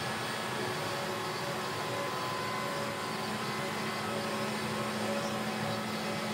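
Chencan four-spindle rotary CNC router running as its router spindles carve wooden cabriole legs: steady machine noise with a constant low hum.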